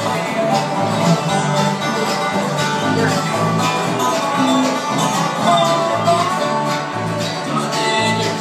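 Bluegrass band playing live, with fiddle, guitars and upright bass; the bass keeps a steady, even pulse of low notes.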